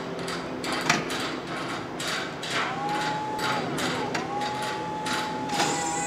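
Raymond narrow-aisle electric reach truck being powered up. Footsteps and knocks come first as the operator steps onto the platform. From about three seconds in a steady electric whine sets in, dips briefly and recovers, and near the end a fuller buzzing tone joins it.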